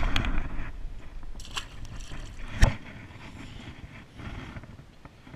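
Close handling noise: scraping and rustling of gear and clothing, with a sharp knock about two and a half seconds in.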